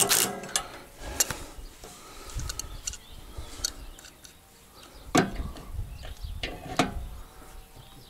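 Scattered metal clinks and knocks of a spanner and bolts being handled at a mower wheel hub, with louder knocks about five seconds in and again a second or so later.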